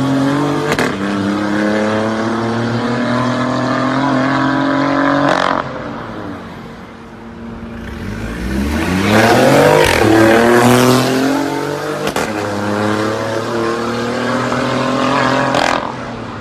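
BMW i8's turbocharged three-cylinder engine through a valvetronic exhaust with catless downpipe, accelerating hard with quick upshifts, the note climbing in pitch between each shift. It falls away about five seconds in. It then swells to its loudest as the car comes close by, pulls away through another upshift, and cuts off near the end.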